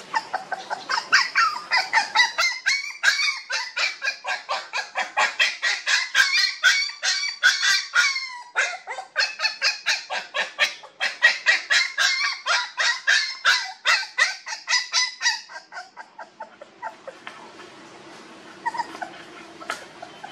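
A rapid run of short, high-pitched animal calls, about four a second, that stops about fifteen seconds in and gives way to a few fainter calls.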